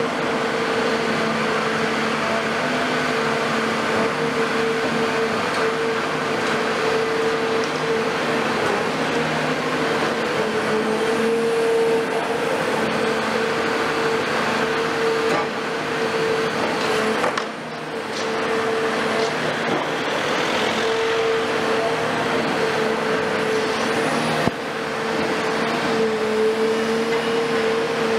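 Cat 336F long-front demolition excavator running under hydraulic load: its C9.3 diesel engine with a strong steady whine over it, dipping briefly a little past halfway.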